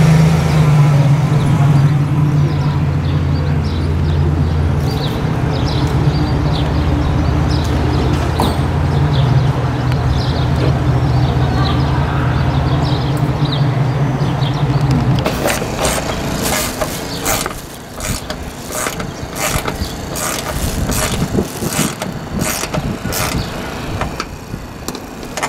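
A vehicle engine idling with a steady low hum, which stops abruptly about fifteen seconds in. After that comes a run of sharp clicks, about two a second, as a solar-panel mounting bolt is turned down with a hand nut driver.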